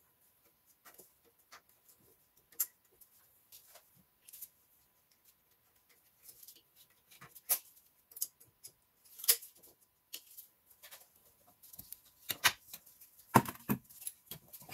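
Scattered light clicks and taps of a hose clip being worked loose with a hand tool among metal engine parts. Sparse at first, busier after about six seconds, with a few louder knocks near the end.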